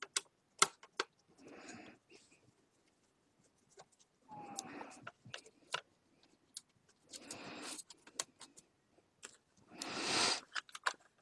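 Small clicks and taps, with short bursts of scraping, from a screwdriver working a screw and hands handling the plastic chassis of an Epson PictureMate inkjet printer that is being taken apart. The loudest scrape comes near the end.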